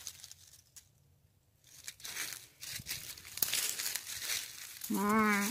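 Footsteps crunching and rustling through dry leaf litter, starting about two seconds in. Near the end, a low, wavering, drawn-out call lasting about a second rises over the crunching.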